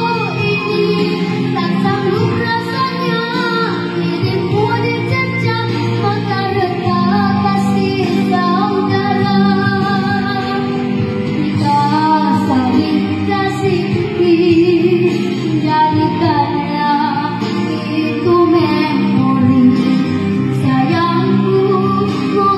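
A young girl singing a song into a handheld microphone over music accompaniment, holding and bending her notes.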